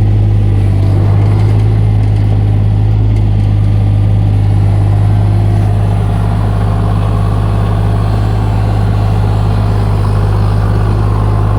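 Mini excavator engine running loud and steady at a constant speed, with a deep even hum.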